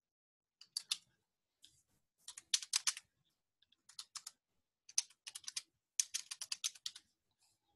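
Typing on a computer keyboard: quick keystrokes in several short bursts with pauses between, stopping just before the end.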